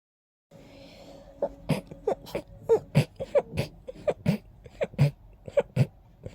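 A person's hay-fever sneezing fit set off by pollen: a fast string of short, sharp sneezes, about three a second, starting about a second and a half in.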